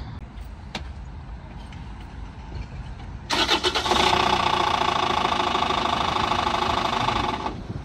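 Rover 75's 2.0-litre four-cylinder BMW-built diesel engine is turned over on the key and runs loudly for about four seconds, starting about three seconds in, then stops abruptly. The noise is the sign of a catastrophic engine failure that the AA patrol puts down to the crankshaft.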